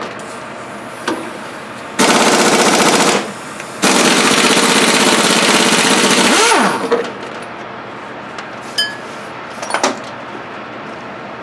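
Impact wrench hammering in two bursts, about a second and then nearly three seconds long, backing out the brake caliper's 7 mm Allen-head bolts. A few light metallic clicks follow near the end.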